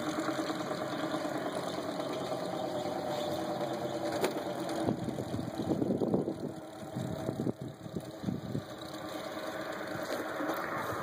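An engine or motor running steadily, with a pitched hum that is clearest in the first few seconds and turns rougher and uneven in the middle.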